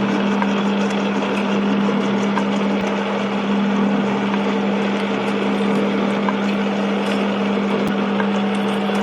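Colchester metal lathe running, turning down a bolt: a steady hum with faint scattered ticks.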